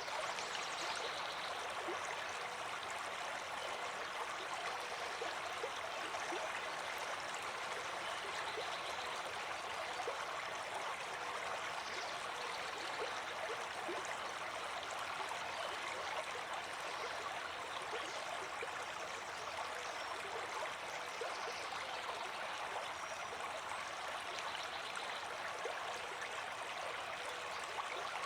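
A river flowing steadily, an unbroken rush of running water.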